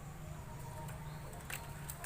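A pause between a Chinese hwamei's song phrases: a low steady hum with two faint short clicks near the end.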